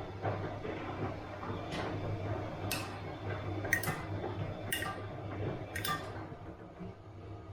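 Bosch washing machine running with a steady low hum, and a sharp metallic clink about once a second as the drum turns, five in all, stopping about six seconds in.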